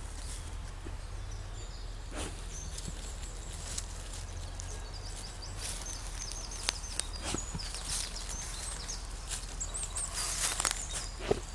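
Czechoslovakian wolfdog digging with its nose and paws in loose soil and dry leaves: scattered scratches, rustles and small crunches, a few sharper ones near the end.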